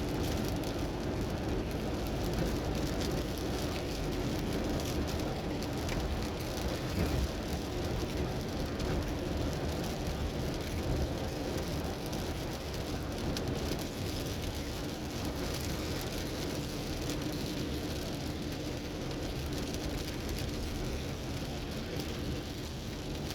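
Rain pattering on a moving car, with a steady rumble of road and engine noise underneath and small scattered drop ticks.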